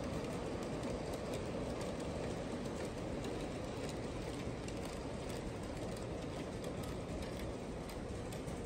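G-scale model freight train rolling past on its track: a steady rolling noise of the cars' wheels on the rails, with scattered light clicks.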